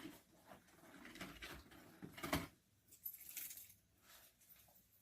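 Faint handling noises: scattered soft clicks and rustles, the sharpest a little over two seconds in, with a brief hiss about a second later.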